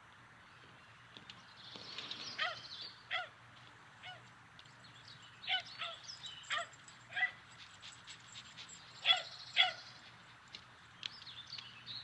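Short, high animal calls, mostly in pairs, from an animated film's sound-effects track, over a faint steady low hum.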